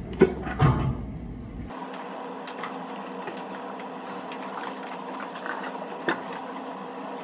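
A couple of knocks and rustling from the phone or camera being handled, then a steady mechanical room hum with a low tone and a higher tone, broken by a few light taps.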